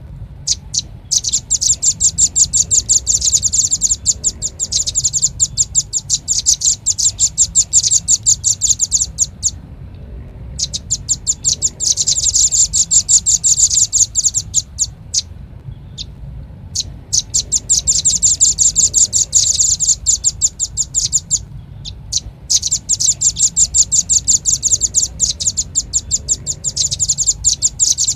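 Velvet-fronted nuthatch calling: fast, high, dry trills of chip notes, about ten a second, in runs of several seconds with short breaks between, a recorded lure call for this species.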